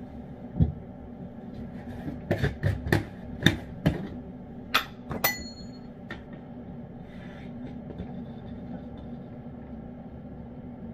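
A metal utensil clinking and knocking against cans and a ceramic dish while cat food is served: a run of sharp clinks, most between about two and five and a half seconds in, the last one ringing briefly. A steady low hum lies underneath.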